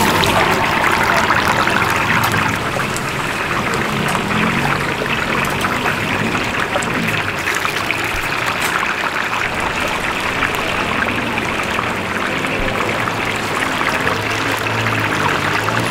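Spring rolls deep-frying in hot oil: a steady, dense sizzle full of fine crackles.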